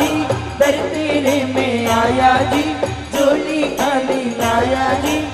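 Live Rajasthani devotional bhajan: a woman singing a melody into a microphone, backed by dholak and tabla drums keeping a steady beat, with harmonium and keyboard.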